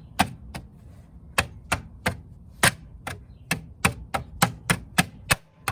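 A new plastic hubcap being tapped into place on a car wheel: a quick, uneven run of sharp knocks, about three a second, as its clips snap onto the rim.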